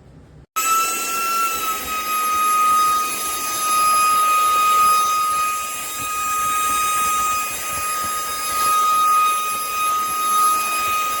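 Dreame H12S cordless wet-and-dry vacuum running, its motor giving a steady high whine over rushing air. It starts abruptly about half a second in.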